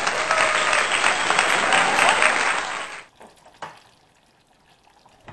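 Applause sound effect: a crowd clapping, with a few voices in it, for about three seconds, then cutting off suddenly.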